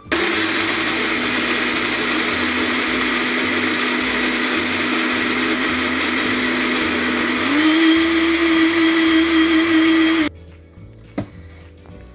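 Electric countertop blender grinding mango pieces with a little milk: the motor starts at once and runs steadily, steps up to a higher pitch about seven and a half seconds in, and cuts off suddenly after about ten seconds. A single knock follows shortly after.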